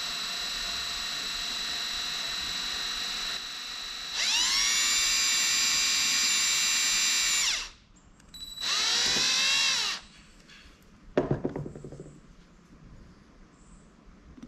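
DeWalt cordless drill boring a tiny hole in an aluminum Holley carburetor part: the motor runs steadily, then about four seconds in speeds up and gets louder with its pitch rising for about three seconds, stops, and gives a second short burst. A sharp clack follows about a second later.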